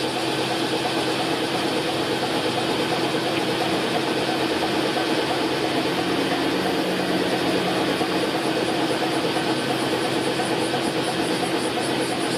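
Steady hum of road traffic and engines where a Keihan 700-series tram runs slowly in along street track. A lower engine hum swells briefly about halfway through, as a car goes by.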